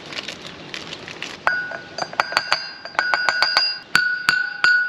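Hammer tapping new grease seals into the steel cleaning-fan hub of a John Deere 9770 combine, starting about a second and a half in with quick taps, about three to four a second, each strike leaving a clear metallic ring.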